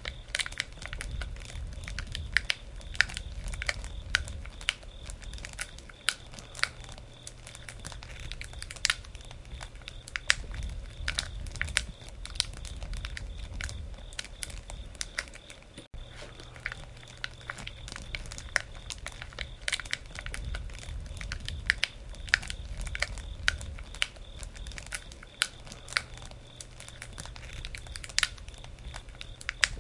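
Wood campfire burning and crackling, with frequent irregular sharp pops and snaps over a low steady rumble of the flames.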